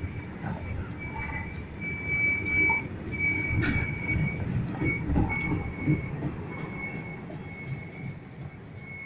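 Goods train of open freight wagons rolling past, with a low rumble and irregular wheel knocks. A high wheel squeal comes and goes throughout, and there is one sharp clank about three and a half seconds in. The sound fades over the last few seconds as the end of the train goes by.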